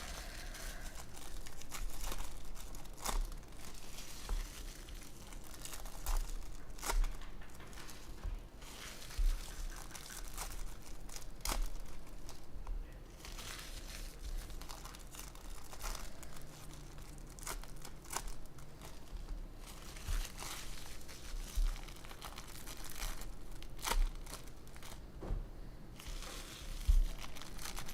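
Plastic trading-card pack wrappers crinkling and tearing as packs are handled and ripped open, with many sharp crackles and small clicks throughout.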